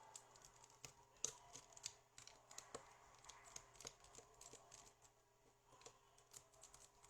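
Faint, irregular clicks and light taps from a video cassette being handled, over a faint steady hum.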